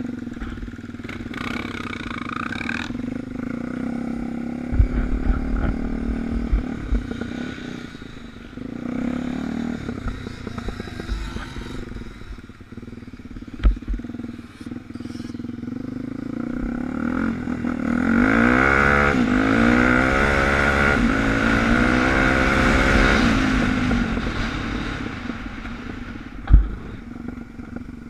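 Suzuki DR350 dirt bike's single-cylinder four-stroke engine running while ridden off-road, its revs rising and falling, loudest in the second half. A few sharp knocks cut through.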